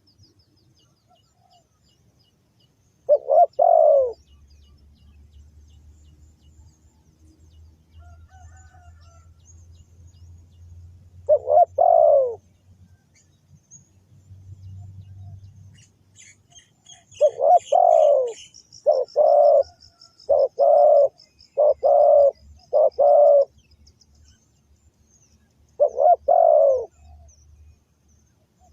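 Spotted dove cooing: short groups of low coos separated by pauses, then a quick run of about seven coos past the middle and a last pair near the end. Faint high chirps from small birds sound briefly in the middle, over a low hum.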